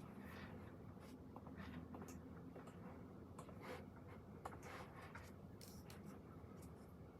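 Faint pen strokes scratching on paper, irregular and short, over a steady low hum.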